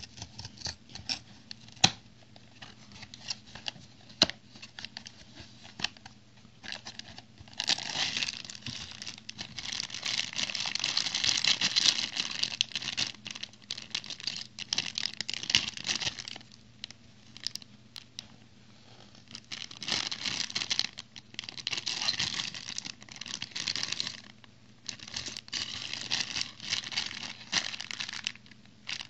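Handling a cardboard toy box gives a string of sharp clicks and taps in the first several seconds. Then a clear plastic bag of small plastic toy bricks crinkles in long stretches as it is turned and squeezed in the hands, with short quieter pauses between.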